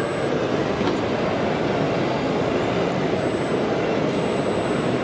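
Steady background noise of a crowded exhibition hall, with a faint thin high whine that comes and goes briefly a few times.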